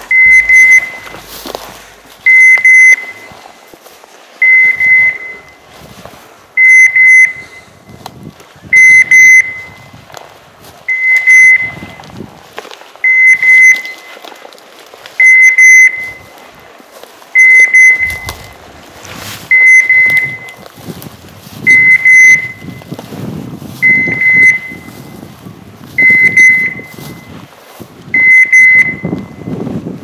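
Dog beeper collar in point mode, sounding a single high beep about every two seconds: the sign that the pointer is standing on point.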